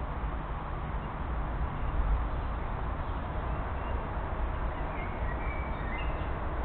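Steady hiss and low rumble picked up by a trail camera's microphone: the constant background noise of a nearby expressway and factories. A few faint, short, high chirps come about five to six seconds in.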